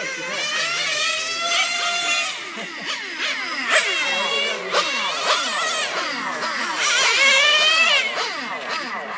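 Modified Novarossi nitro glow engine of a 1/10 Mugen MTX4 R RC touring car, a small two-stroke revving very high, its pitch climbing on the straights and dropping back for the corners over and over as the car laps. It is loudest a couple of seconds before the end.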